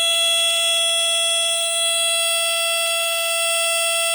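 GE Home Sentry 8203-001 smoke detector's alarm horn sounding on test: one continuous, very high-pitched and very loud tone, held steady with little modulation.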